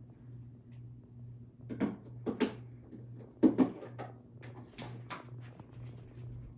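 A handful of short knocks and clicks of things being handled, the loudest in two pairs about two and three and a half seconds in, over a steady low hum.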